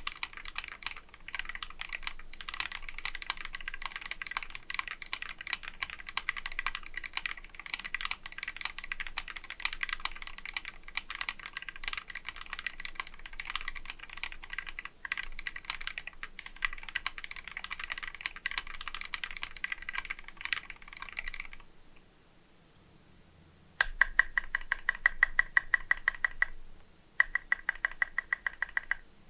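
Mechanical keyboard with lubed Glorious Panda tactile switches on a polycarbonate plate, typed on fast and continuously. About 22 seconds in the typing stops. After a short pause, one stabilized key is pressed over and over in a quick, even rhythm, in two runs that are louder than the typing.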